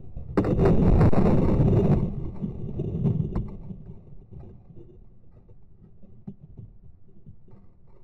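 An RC P-51D Mustang model crashing, heard from its onboard camera: about half a second in, a loud burst of thrashing and scraping through grass and branches with a high steady whine over it, which stops about two seconds in. It then dies away into faint rustling and a couple of clicks as the model comes to rest in the brush.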